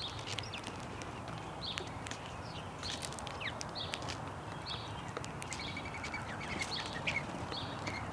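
House sparrows chirping repeatedly while feeding, with many sharp ticks and taps of beaks pecking at seed. About six seconds in, a short quick run of chirps.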